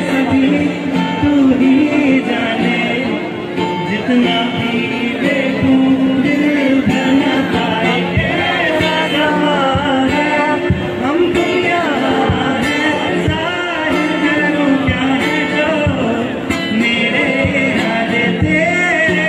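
A man singing a Hindi-Urdu song live into a microphone, amplified through a PA, with instrumental accompaniment.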